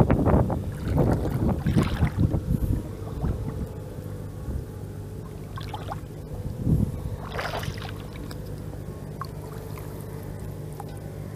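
Shallow water splashing and sloshing as hands lift and work a fishing net, loudest in the first two to three seconds, with a few shorter splashes about six to eight seconds in. A steady low hum runs underneath.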